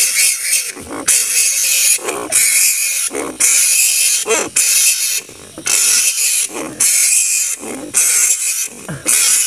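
Large flying foxes (kalong kebo) screeching: a string of harsh, hissing screeches, about one a second.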